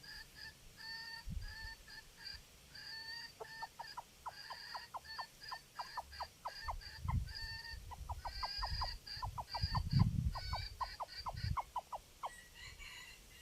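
Junglefowl calling: a long series of short, evenly repeated clucking notes that quicken into a rapid run of falling notes, about four a second, before stopping near the end. Gusts of wind rumble on the microphone, strongest about ten seconds in.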